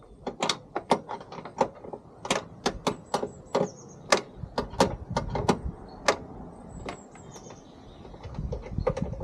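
Ratchet wrench clicking in short irregular runs, about three clicks a second, as a car door's hinge bolts are worked loose. Faint high bird chirps now and then.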